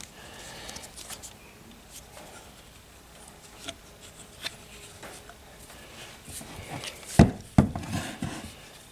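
Plaster slip-casting mold handled on a wooden workbench: light rubbing and small taps, then two heavy thumps about half a second apart, a little after seven seconds in, as the block is tipped and set down.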